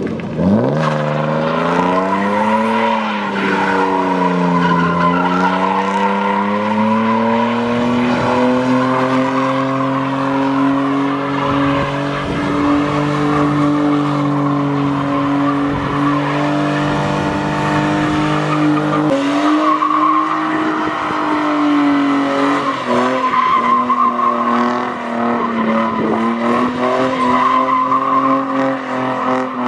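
BMW E30 sedan drifting, its engine held at high revs while the rear tyres squeal and skid on the tarmac. The revs rise and fall over the first few seconds, then hold steady, dipping briefly about two-thirds of the way through.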